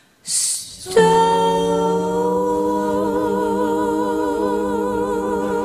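Several women's voices holding one long chord in close harmony, with a slow vibrato coming into the upper voices. It comes in about a second in after a short hiss, as the song's final held note.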